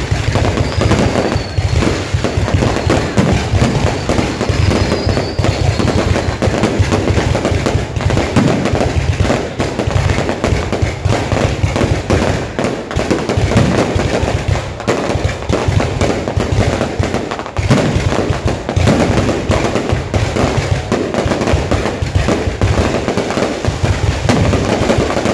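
Fireworks and firecrackers going off in a dense, unbroken barrage of crackles and bangs over a low rumble, with a couple of faint whistles early on.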